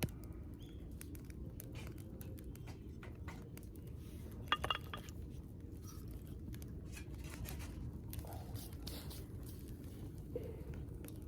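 Small campfire of kindling catching in a metal fire grill, with irregular crackles and pops, and a few metallic clinks about halfway through.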